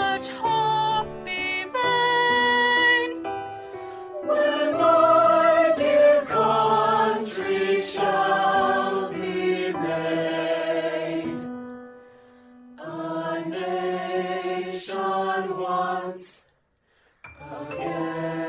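A choir singing held chords in slow phrases, with a brief silence near the end before the next phrase begins.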